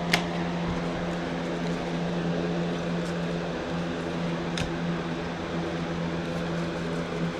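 A steady low machine hum with a constant pitch, like a room fan or air conditioner, with two brief clicks, one right at the start and another about four and a half seconds in.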